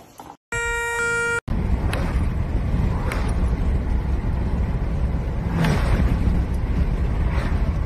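Wind rushing and road rumble from a car driving with a window open, heard from inside the car; it starts about a second and a half in. Just before it, a steady horn-like toot lasts about a second.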